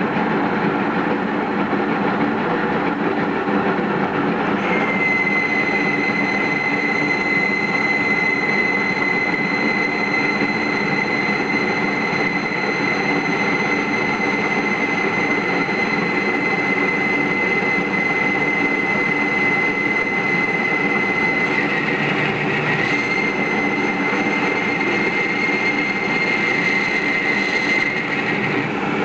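Metal lathe running while it cuts a metal hub for a bearing. About five seconds in, a steady high-pitched squeal from the cut sets in over the machine noise, and it wavers briefly a few seconds before the end.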